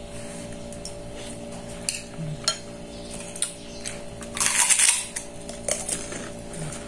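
Metal spoon tapping and scraping on a ceramic plate during a meal: a few sharp clinks spread through, and a louder rasping burst about four and a half seconds in.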